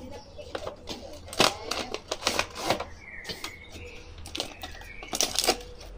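Crinkling of a clear plastic bag and rustling of cardboard packaging as an action figure is unpacked by hand: irregular sharp crackles, loudest about a second and a half in, again around two and a half seconds in, and near the end.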